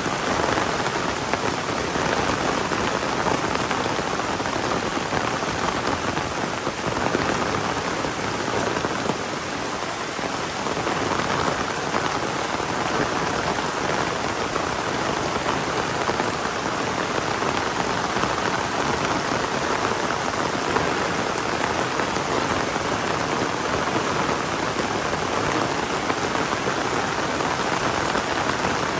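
Heavy rain pouring down steadily, a dense, even hiss of countless drops.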